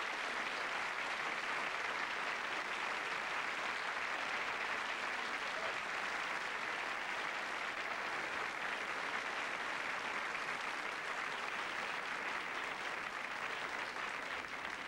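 Theatre audience applauding steadily, a welcoming ovation for a performer who has just been introduced and come on stage.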